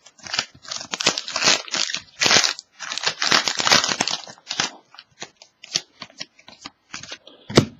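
Foil trading-card pack wrapper crinkling and crackling as it is torn open and handled, in irregular bursts, with one sharper knock near the end.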